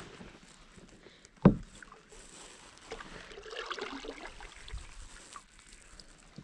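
A single knock about a second and a half in, then a kayak paddle stroking through calm water with a light swishing and dripping.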